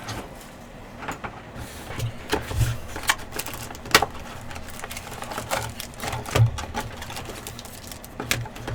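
Trading card packs and cards being handled on a table: irregular clicks, crinkles and light knocks, a few sharper taps standing out.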